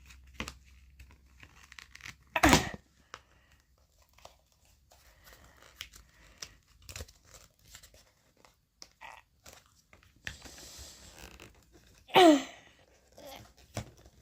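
Cardboard and plastic packaging of a cat collar being prised and picked at by hand with a pencil: scattered clicks and scrapes, then a stretch of tearing or crinkling about ten seconds in. Two short vocal sounds with falling pitch stand out, a couple of seconds in and near the end.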